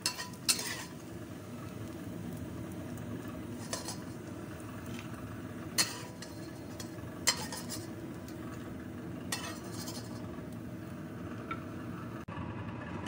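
A metal ladle clinking and scraping against a wok while fried vegetarian chicken pieces are scooped out of hot oil: about five sharp clinks spaced a second or two apart over a steady low background noise.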